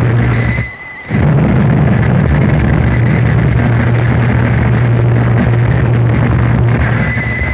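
Harsh noise music: a loud, dense wall of distorted noise over a heavy steady low hum. It drops out briefly just under a second in, then comes straight back at full level.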